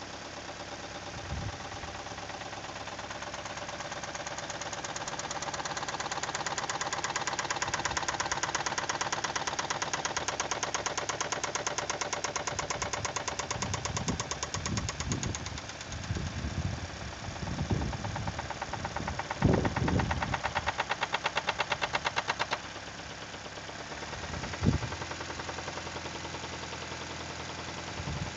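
Toyota 2E four-cylinder petrol engine running with a fast rhythmic knock; the revs climb over the first several seconds, hold with a few low thumps, then fall back to idle about two-thirds of the way through. The knock came on after a sustained high-speed run, and its cause is unknown to the owner.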